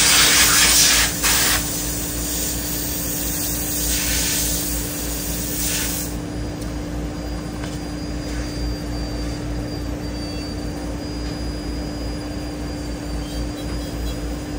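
Loud hissing for the first second and a half and again from about four to six seconds in, over a steady machine hum with a faint high whine.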